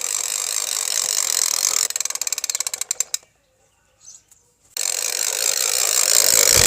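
Toy helicopter's gear mechanism whirring, then running down about two seconds in into rapid clicks that slow and stop. After a pause of about a second and a half it starts whirring again and grows louder.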